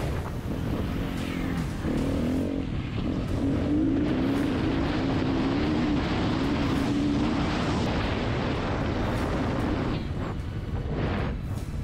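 Off-road rally motorcycle engine running under changing throttle, with heavy wind rush on the bike-mounted camera's microphone. The engine note wavers and drops back about ten seconds in.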